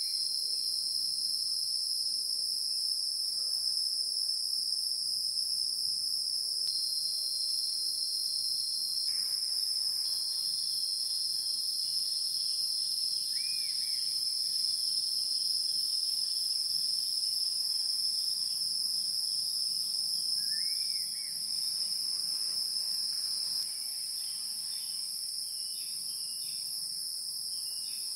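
Steady, shrill chorus of insects: one continuous high band with a higher, slightly pulsing one above it. Two faint, short bird chirps come in the middle, and the chorus steps down a little in level late on.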